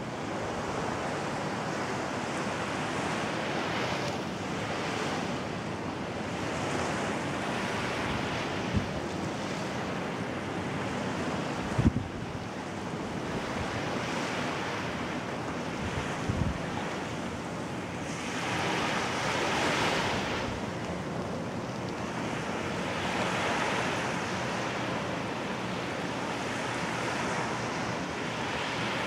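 Steady wash of sea surf mixed with wind blowing across the microphone, swelling and easing in slow surges. A few short low thumps, the sharpest about twelve seconds in, stand out from the wash.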